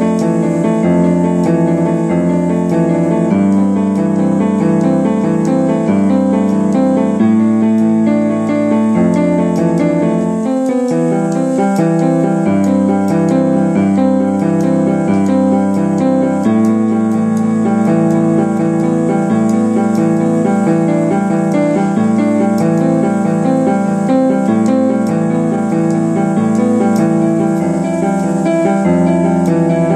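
Keyboard music: sustained chords, each held for a second or two before the next, at a steady loudness.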